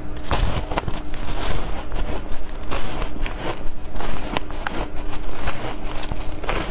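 Close-up crunching of a block of compressed shaved ice coated in matcha powder, bitten and chewed, with many irregular sharp cracks a few times a second.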